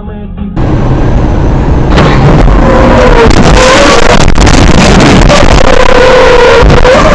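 Loud, harsh road and wind noise inside a car driving on a highway. A wavering, drawn-out tone sounds twice over it in the second half.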